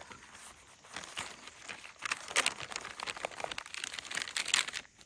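Plastic packaging crinkling and rustling as a filled flour tortilla is folded and rolled on top of it, in irregular crackles that get busier about two seconds in and die away just before the end.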